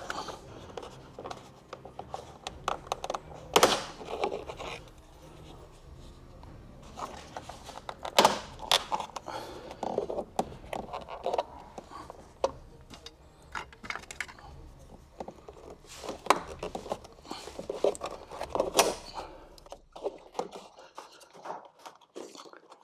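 Plastic door trim and speaker cowling being handled and worked loose with tools: irregular clicks, knocks and scrapes, with a few louder knocks about 4, 8, 16 and 19 seconds in.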